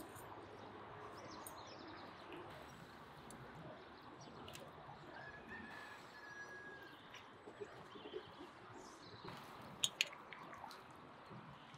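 Faint outdoor background with birds calling. About ten seconds in come two sharp clicks of metal forks against a steel cooking pot.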